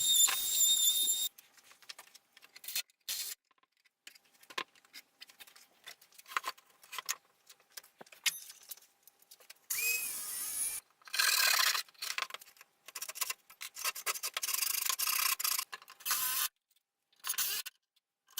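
Timber being worked with hand tools: irregular scraping and rasping strokes in short snippets that start and stop abruptly, with silent gaps between them. A high-pitched whine breaks off about a second in.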